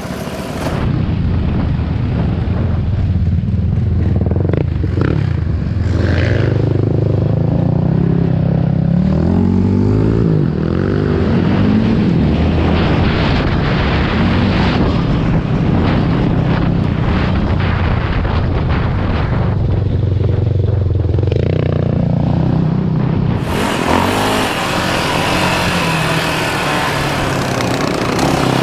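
Yamaha single-cylinder four-stroke off-road engine being ridden hard on a dirt trail. The revs climb and drop repeatedly through the gears, over a steady rush of wind and trail noise. The sound turns duller about a second in and brighter again about five seconds before the end.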